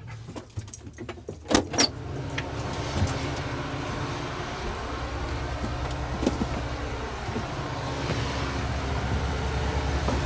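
A few sharp clicks and rattles in the first two seconds, then a vehicle engine running steadily, its hum rising slightly near the end.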